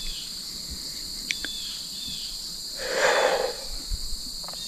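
Steady chorus of crickets, with one heavy, breathy exhale close to the microphone about three seconds in.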